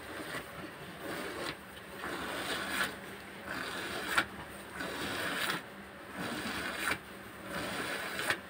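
Hand milking: streams of milk squirted from the teats into a plastic bucket of frothy milk, in rhythmic spurts about once a second. A couple of sharp clicks sound, the loudest about four seconds in.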